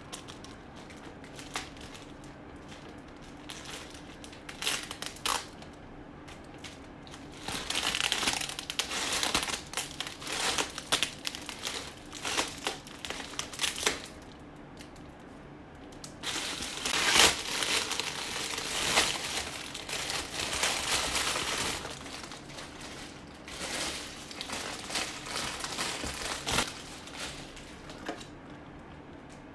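Crinkly foil wrapping of a large Kinder chocolate Easter egg crackling and rustling as it is torn off by hand. The crinkling comes in two long loud bouts with quieter handling between and a softer spell near the end.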